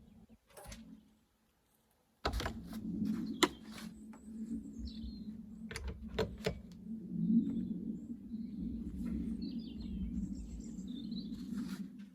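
Birds chirping in the background over a steady low hum that starts about two seconds in, with a few sharp clicks and knocks of parts being handled.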